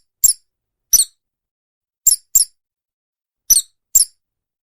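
A small bird chirping: six short, high chirps, some in quick pairs.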